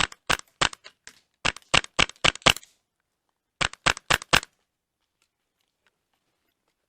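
Airsoft gun firing: three quick strings of sharp cracks over about four seconds, then silence.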